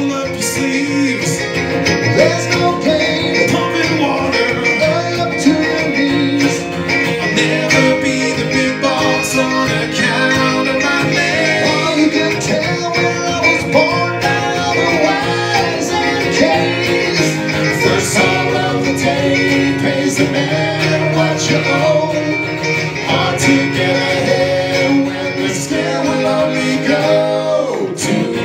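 Acoustic folk band playing live: an acoustic guitar and a small-bodied guitar strummed together, with singing over them.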